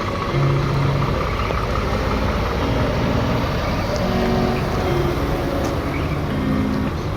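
Heavy truck's diesel engine running as it pulls away, a steady loud rumble. A few short held notes at shifting pitches sound over it.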